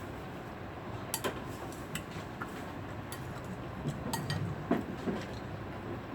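Spoon and dishes clinking in a few separate sharp taps while someone eats from plates, over steady low background noise.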